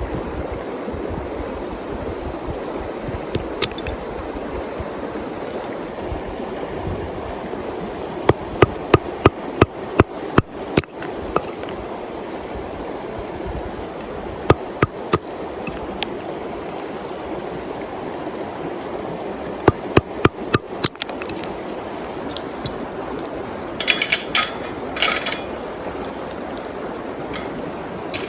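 Steady rush of a river flowing over stones, broken by several runs of sharp knocks: a quick evenly spaced series of about eight near the middle, a few more later, and a short rattle of metallic clinks near the end.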